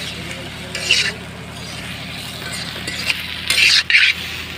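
Masala-coated fish pieces frying in a metal kadhai, sizzling steadily, while a metal spatula stirs and scrapes against the pan. The scraping strokes come about a second in and louder near the end.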